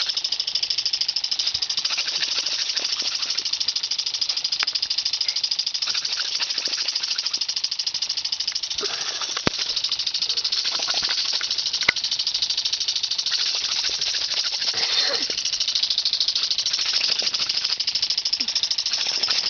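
Pop-up lawn sprinkler spraying water, a steady hiss with a fast, even rattle in it as the jet sprays close by, broken by two sharp clicks near the middle.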